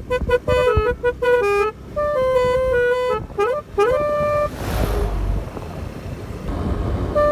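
Basuri 'keong' telolet horn playing a quick tune of short stepped notes with a few pitch slides, breaking off about four seconds in. A brief rush of noise follows, then quieter sound.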